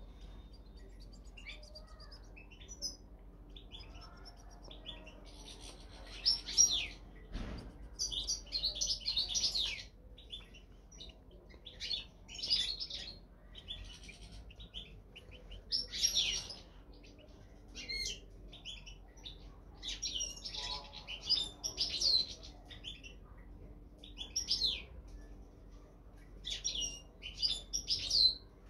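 European goldfinches chirping and singing, with bursts of twittering song every second or two. There is a single knock about seven and a half seconds in.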